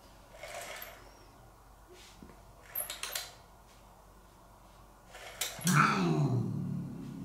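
A cat's short hiss followed by a low growl that falls in pitch, starting about two-thirds of the way through and lasting about a second and a half. Earlier there are soft rustles and a few light clicks.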